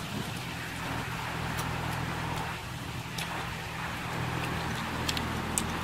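A steady low motor hum, like an engine running, under a faint hiss, with a few light sharp clicks about a second and a half in, around three seconds in and near the end.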